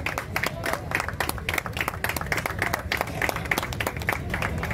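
Audience clapping, a steady patter of many separate hand claps.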